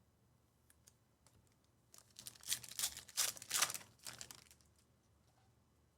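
Trading cards and pack wrapper being handled: a run of rustling, crinkling and small clicks lasting about two and a half seconds, starting about two seconds in, with a few faint isolated clicks around it.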